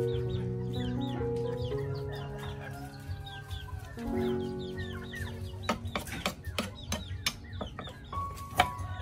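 Cleaver chopping garlic on a thick wooden cutting board: sharp, irregular knocks about two a second, starting a little past halfway. Background music plays throughout.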